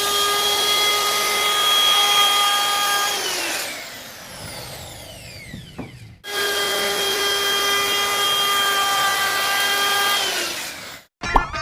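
NRT Pro 3601 HD wood router motor running at full speed with a steady high whine. It is switched off about 3 s in and winds down with a falling whine, starts again about 6 s in, and winds down once more near the end.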